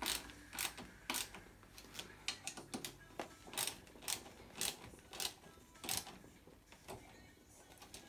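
Ratchet wrench clicking in short strokes, about two clicks a second, as the ATV's handlebar clamp bolts are tightened. The clicks thin out and stop near the end.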